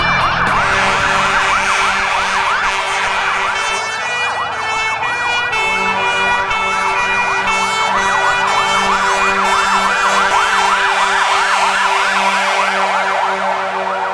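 Fire engine siren on a fast yelp: a wail sweeping rapidly up and down, several times a second, over steady pulsing tones lower down.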